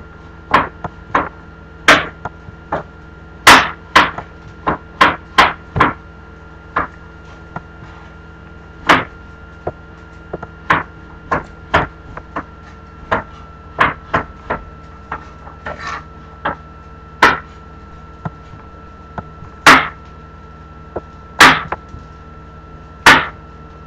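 Chopping on a cutting board: about thirty sharp knocks in uneven groups, with pauses of a second or more between them. A steady hum runs underneath.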